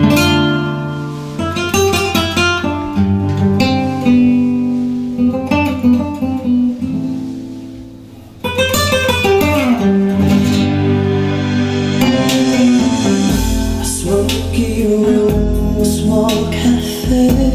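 Music played through home-built speaker cabinets with Ciare PW 256 woofers and Sica 9470 tweeters: a guitar-led track that starts abruptly, eases off about halfway, then comes back fuller, with deep bass joining near the three-quarter mark.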